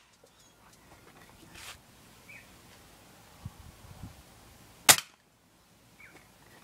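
A single sharp crack of a .177 air rifle firing about five seconds in, preceded by a few quiet clicks and knocks.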